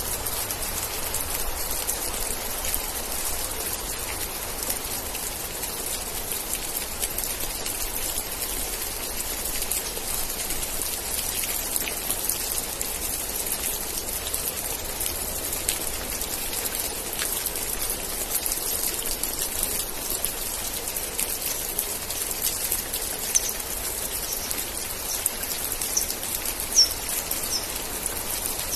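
Steady rainfall: a dense, even hiss of drops striking surfaces, with a few short high chirps near the end.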